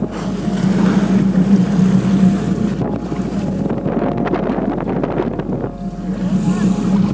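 Motorboat engine running steadily with a low hum, while wind buffets the microphone.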